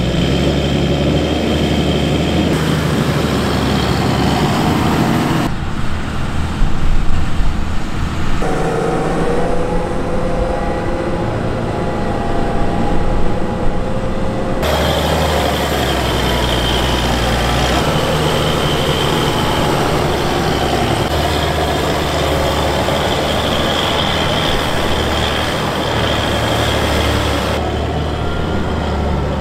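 Large Fendt tractor engines running steadily under load while pulling soil-levelling boxes through earth. The sound changes abruptly several times, at edit cuts between tractors.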